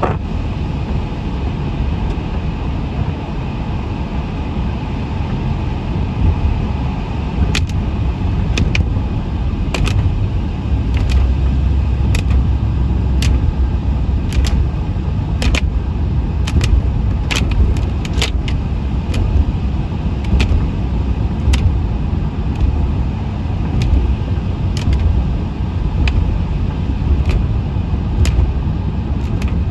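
Inside a moving vehicle: a steady low road and engine rumble. From about a quarter of the way in, a sharp click comes roughly once a second.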